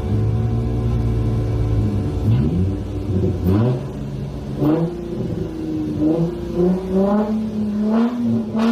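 Car engine idling steadily, then revved in a series of short blips, its pitch jumping up and falling back about once a second.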